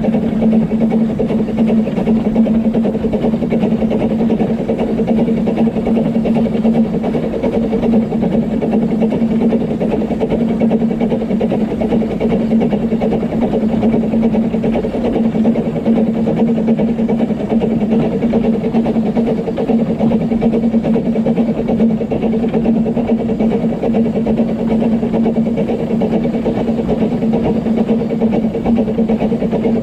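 Narrow-gauge steam locomotive Dolgoch and its train: a loud, steady running sound with a constant low hum and no distinct exhaust beats.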